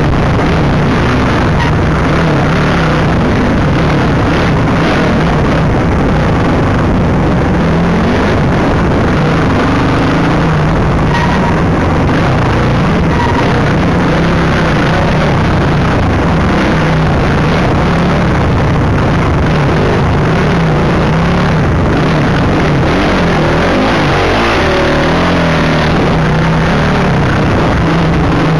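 Dirt bike engine running and changing revs as it is ridden along a trail, heard through a helmet-mounted camera with wind rush over the microphone; loud throughout.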